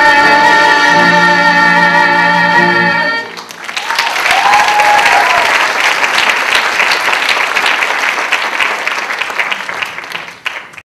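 Two singers and a band holding the song's final sustained note, which cuts off about three seconds in. An audience then applauds, with a cheer rising from it, and the clapping tails off near the end.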